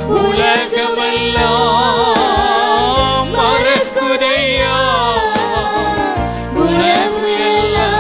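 Tamil Christian worship song: a steady drum beat under a held melody line with vibrato.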